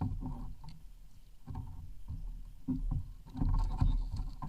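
Water sloshing and knocking against a kayak hull, over a steady low rumble on the microphone.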